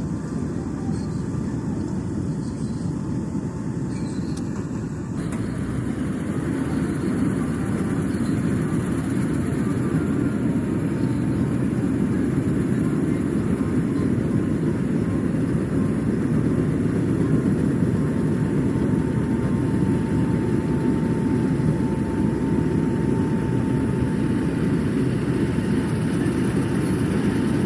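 Rice harvesting machine running steadily under load in the crop, a continuous low mechanical drone with a faint steady whine, growing slightly louder after about five seconds.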